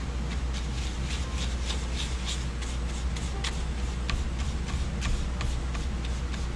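Flat paintbrush scrubbing and mixing acrylic paint on a paper plate: a quick, irregular run of short scratchy strokes, over a steady low hum.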